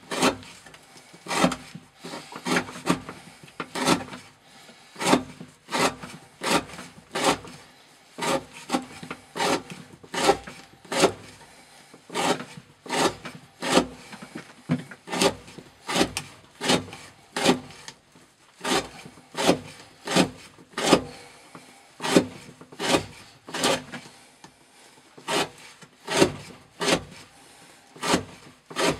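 Knife with a thin CPM 15V steel blade slicing through rope laid on a wooden block, stroke after stroke, a little more than one cut a second. Each cut is a short, sharp rasp of the edge through the fibres.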